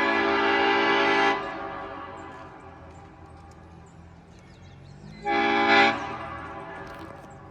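Nathan Airchime P01235 five-chime train horn with old cast bells sounding its chord: a long blast cuts off about a second in and dies away in echo, then a short blast about five seconds in also fades away in echo.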